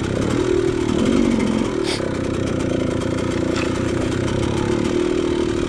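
KTM dirt bike engine running at low revs over rough, rocky ground, its pitch rising and falling once about a second in. A sharp click comes about two seconds in.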